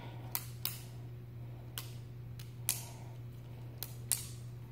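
A balisong (butterfly-knife) pen being flipped: its handles clack sharply several times at uneven intervals, with two clicks close together near the end.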